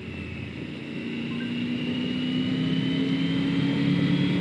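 Triumph Tiger 900 GT's three-cylinder engine pulling steadily under gentle acceleration, its note slowly rising in pitch and growing louder as the bike gains speed.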